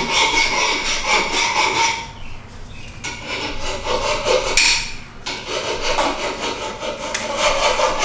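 Hand key tightening the clamp bolt in a roof crossbar's foot: quick scraping and clicking strokes in spurts, easing off for a moment about two seconds in and again around five seconds.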